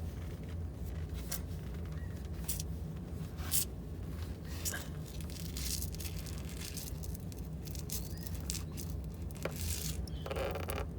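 Scattered, irregular light clicks and scrapes of a socket and oil drain plug being worked loose under the car, over a steady low hum.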